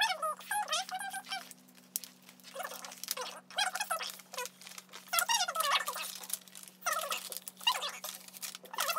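Plastic release film on a diamond painting canvas crinkling and rustling as it is peeled back by hand, in several bouts with a short pause.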